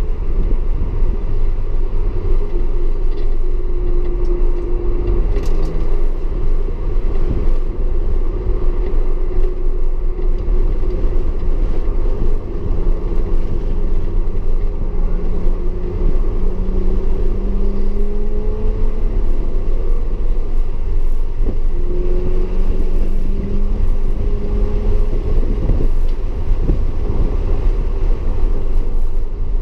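Audi S4's engine pulling hard through a lap, its note climbing slowly several times and dropping back between, over a constant deep rumble.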